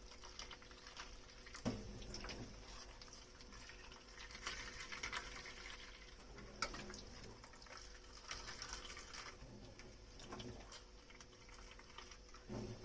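Quiet washing-up at a kitchen sink: faint water and scrubbing sounds, with a few sharp clinks of dishware, one about two seconds in and another past six seconds.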